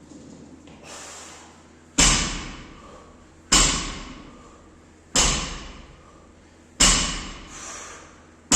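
A loaded barbell with bumper plates hitting the floor again and again, once about every second and a half, each heavy thud ringing out in the room: repeated lifts during a workout.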